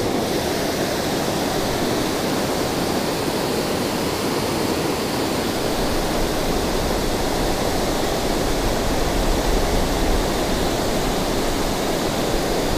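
Creek water pouring over a low dam, a steady rushing with no break.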